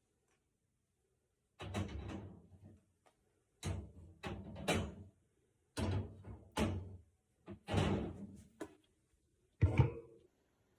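Five sharp clattering knocks about two seconds apart, each dying away over about a second.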